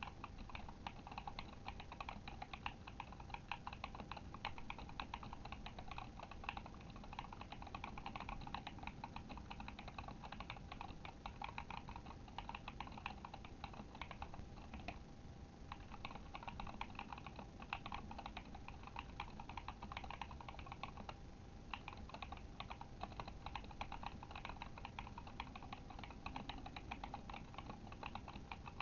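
Steady fast typing on a Kemove Shadow mechanical keyboard with tactile Glorious Panda switches: a dense run of key clacks, with two short pauses about halfway and two-thirds of the way through.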